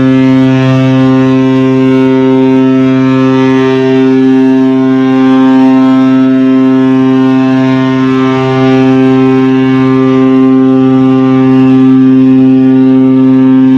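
Container ship's horn sounding one long, steady blast at close range: a deep, loud tone held without a break.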